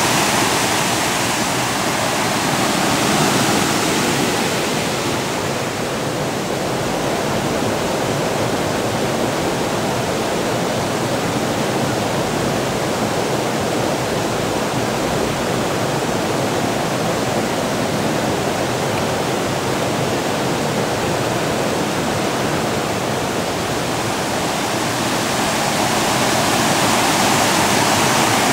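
Water rushing and splashing over a small stepped stone cascade, a steady, loud noise of falling water. It turns duller, losing its hiss, from about five seconds in, and grows brighter again near the end.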